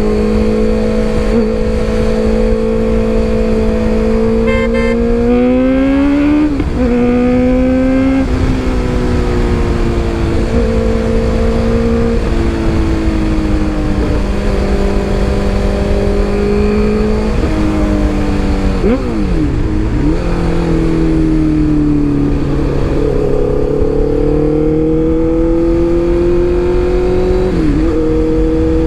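Honda CBR650F's inline-four engine through an Arrow full-system exhaust with no dB killer, pulling hard while riding at speed. The engine note holds steady stretches that step up and down in pitch, with a few brief sharp dips, and climbs slowly near the end.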